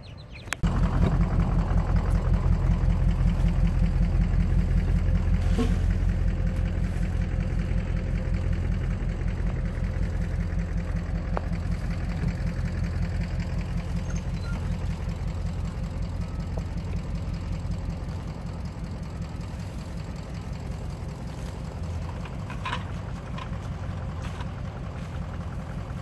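An engine idling steadily, a low hum with a fast pulsing beat that starts abruptly and slowly fades, with a couple of faint knocks.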